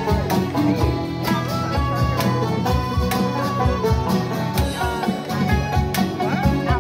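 Live band playing an instrumental passage: electric guitars over a drum kit keeping a steady beat.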